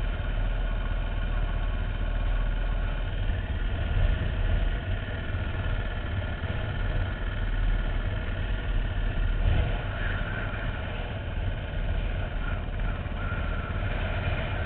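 Husqvarna dirt bike engine idling steadily, heard from the rider's helmet, with a strong low rumble under it.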